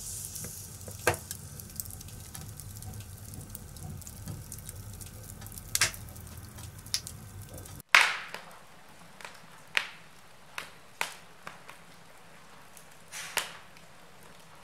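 Wood fire crackling and popping in a fireplace, with a steady low hiss under scattered sharp pops. About eight seconds in the sound breaks off for an instant and resumes with a quieter background and a run of clearer, louder pops.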